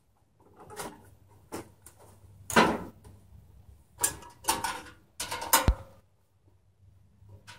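Irregular clunks and rattles of hands working on a garden tractor's seat and battery area, with the engine not running, ending in a sharp metallic click.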